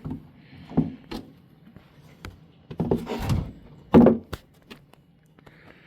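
A few hollow knocks and thunks with a brief rustle as the canopy of a large foam-packed RC airplane is lifted off the fuselage and handled. The loudest knock comes about four seconds in.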